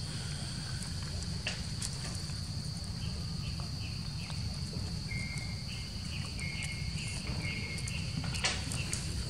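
Insects droning steadily on one high note, over a low rumble, with a few small clicks and a run of short high chirps in the middle.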